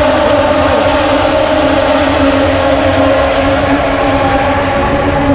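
Loud, steady engine drone holding one pitch, with several tones over a rushing noise.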